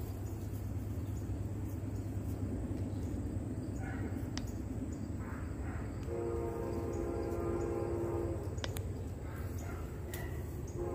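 Train horn sounding one steady chord for about two seconds, about six seconds in, over a continuous low rumble.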